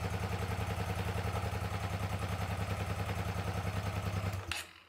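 Hyosung GT650S V-twin engine idling with a steady, even pulse, running on its rear cylinder only: the front cylinder is dead, which the owner puts down to carburettors that need cleaning after two years in the garage. The sound cuts off about four and a half seconds in.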